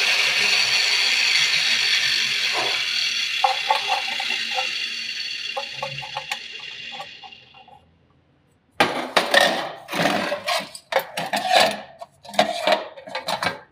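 A steady hiss that fades away over the first several seconds, with a few light clicks under it. After a brief silence comes a run of sharp metal clinks and knocks as a brass lock cylinder is pushed and fitted into a keyhole-shaped hole burned through steel plate.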